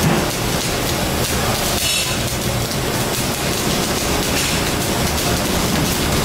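Steady crackling and sizzling of electric arc welding, like rain, over a continuous low rumble.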